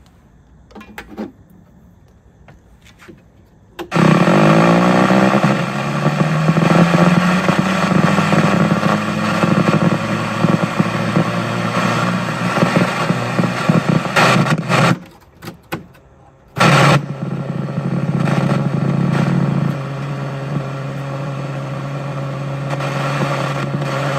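A 1970s Goldstar VT-84IC black-and-white television switched on, giving off a loud, harsh buzz whose pitch wavers and rises as it comes on. About eleven seconds later it cuts off abruptly, then returns a second or two later as a steadier buzz.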